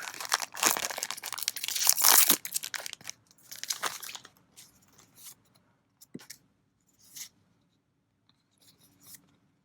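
A foil trading-card booster pack being torn open and its wrapper crinkled, loudest over the first three seconds or so. After that come only soft, scattered rustles and taps as the cards are handled.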